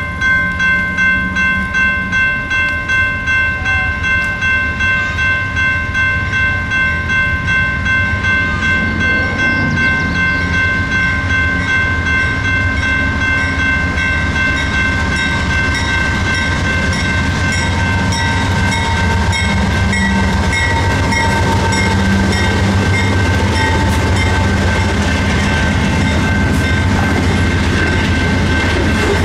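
General Signals Type 2 electronic crossing bell ringing steadily, about two dings a second. Under it, the low rumble of a CN freight train's diesel locomotives, a GE C44-9W and an EMD SD75I, grows louder through the second half as the train reaches the crossing.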